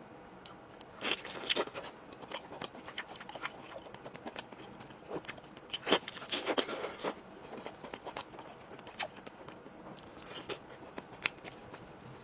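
Close-miked eating of chicken: crunching and chewing, with a cluster of loud crunches about a second in and another around six seconds, and small sharp clicks of chewing between.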